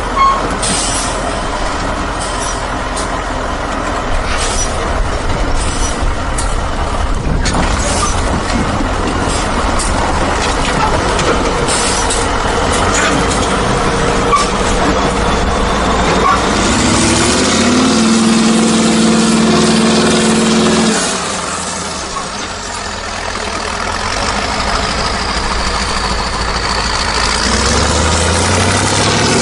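Truck running: a steady engine rumble with hiss and rattle, and a pitched tone with overtones for about four seconds a little past halfway.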